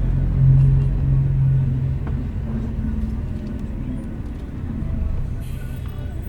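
City bus riding, heard from inside the cabin: a steady low engine drone and road rumble, with a brief hiss about five seconds in.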